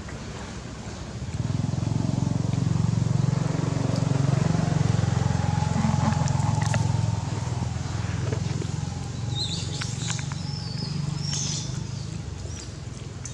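A low engine drone sets in about a second in and fades slowly after about seven seconds. A few short, high chirps come near the end.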